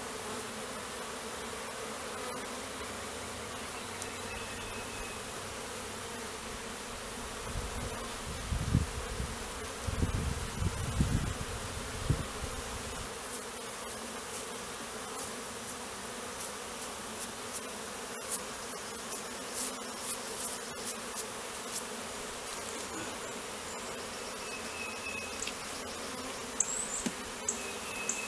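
A honeybee swarm buzzing steadily around an opened bait hive while its comb is worked. A few low bumps and rumbles of handling come in the middle.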